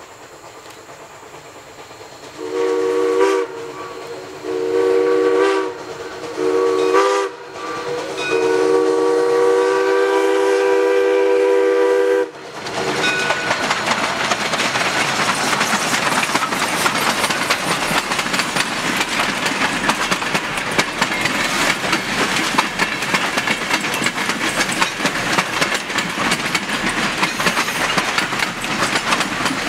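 The steam whistle of 0-6-0 steam locomotive Ohio Power & Light 3 sounds several notes at once in two long blasts, a short one and a last long one: the standard grade-crossing signal. About twelve seconds in, the locomotive and its passenger cars roll past close by, the wheels clattering steadily over the rail joints.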